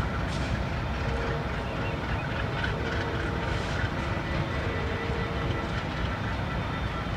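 Norfolk Southern diesel-electric freight locomotives, a GE Dash 9 leading and an ex-Conrail EMD SD60M trailing, rumbling steadily as they roll slowly forward, with a few brief clicks over the low engine drone.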